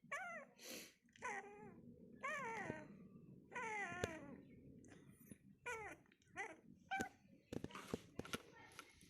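Newborn Pomeranian puppies whimpering and squealing: a series of short, wavering high-pitched cries, the longer ones in the first four seconds and shorter ones after, with a few sharp clicks near the end.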